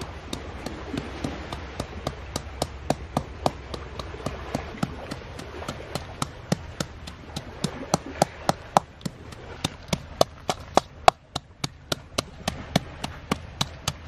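Wooden pestle pounding into a coconut-shell mortar, a steady rhythm of sharp knocks about three a second as green ingredients are mashed.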